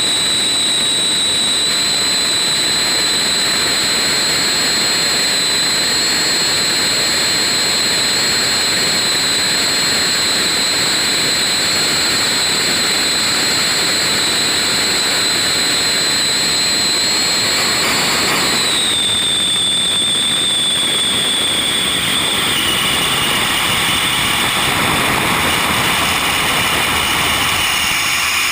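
T-33 Shooting Star's Allison J33 turbojet running loud with a steady high whine over the jet noise. The whine drops in pitch about two thirds of the way through and again a few seconds later.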